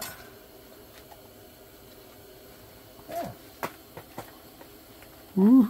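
Mostly quiet with a few faint clicks, a short falling vocal sound about three seconds in, and a man whooping a loud 'woo' near the end.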